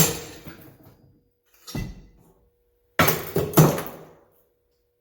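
Sharp metal clanks and bangs, four in all, each ringing briefly; the loudest pair comes about three seconds in. The DeWalt 1/2-inch wrench is giving way under force, and it comes out bent and spread loose.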